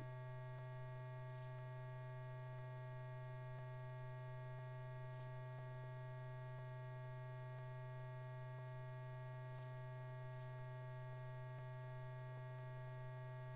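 Low, steady electrical hum with a set of fixed overtones above it, unchanging throughout: the background hum of an old film soundtrack, with no other sound.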